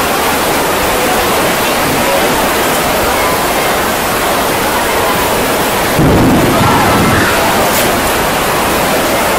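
Heavy thunderstorm rain pouring down in a steady, dense hiss. About six seconds in, a sudden low rumble of thunder rises over the rain for about a second.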